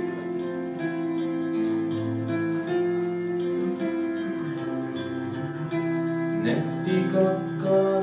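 A live band plays a slow, quiet song passage between sung lines: guitar notes and chords over held, steady tones.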